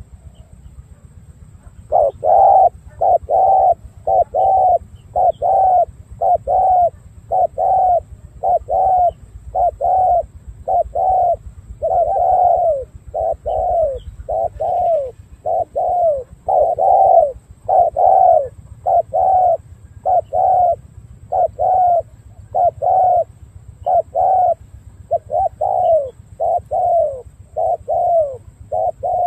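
Spotted dove cooing in a long run of short arching coos, about one a second, starting about two seconds in.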